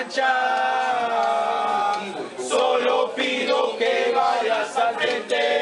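A group of men singing a football supporters' chant together, in long held lines with short breaks between phrases.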